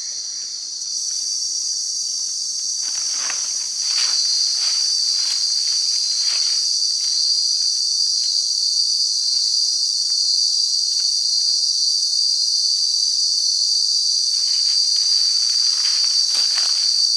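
Loud, steady, shrill insect chorus in the forest, stepping up in volume about a second in and again around four seconds. Brief rustles and crackles come at intervals.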